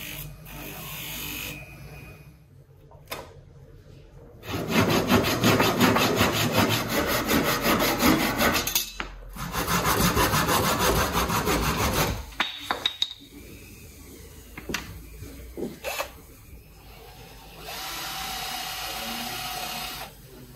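Hand saw cutting through a painted round wooden rod in steady back-and-forth strokes, with a short pause partway through. Near the end a cordless drill runs steadily, boring into the end of a wooden piece.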